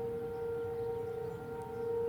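Federal Signal 2001-DC outdoor warning siren sounding a steady, unwavering tone during its monthly test, with fainter higher overtones above the main note.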